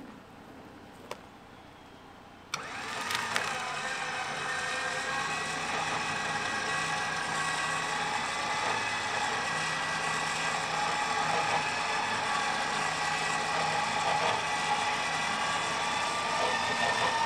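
An Xbull 13500 XRS electric winch switches on about two and a half seconds in, after a single faint click. It runs with a steady whine, reeling its synthetic line in under a light load of a few hundred pounds.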